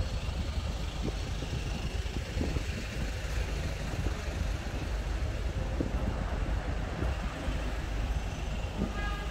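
City street background noise: a steady low rumble of traffic, with a brief high squeak or chirp near the end.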